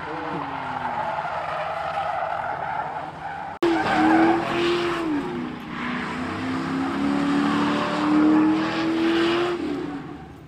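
Car doing a burnout: the engine revved hard and held high while the rear tyres spin and squeal on the asphalt. The sound breaks off abruptly about three and a half seconds in and comes back louder, with a steadier high engine note that falls away near the end.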